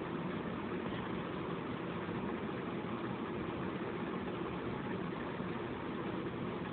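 Electric fan running steadily, a continuous even whoosh of moving air with no change in speed.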